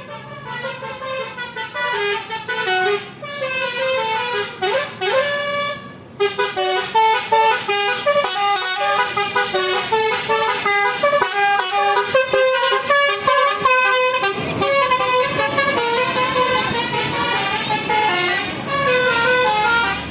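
Basuri-type telolet musical air horn on a tour bus playing a melody of quick stepped notes, with a couple of rising swoops. It is fainter for the first six seconds, then much louder.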